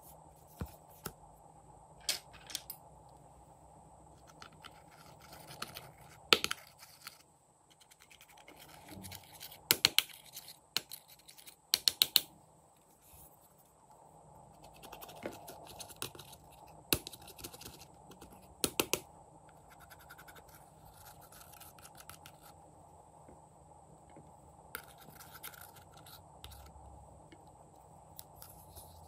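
Metal spatula tool scraping pressed eyeshadow out of palette pans, with scratching and clusters of sharp clicks and taps as the metal hits the palette and the glass tray.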